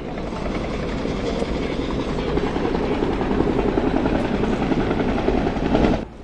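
A military UH-1 'Huey' helicopter flying low overhead, its rotor beating and turbine running, growing louder over the first few seconds. The sound cuts off abruptly about six seconds in.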